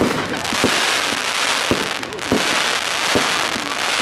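Fireworks display: a continuous crackle of sparks bursting, broken by about six sharp bangs of shells going off in quick succession.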